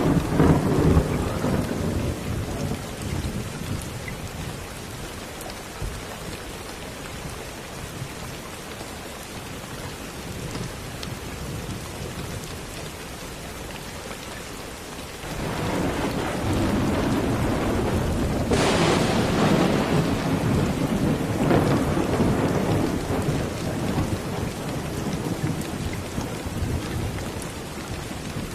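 Steady rain with thunder. A low rumble dies away in the first few seconds, then about halfway through a louder rumble builds, with a sharper crack a few seconds into it, and slowly fades out before the end.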